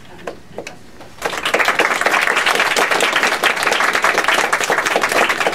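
A small audience applauding: a couple of scattered claps, then the whole room joins in about a second in, with dense, steady clapping.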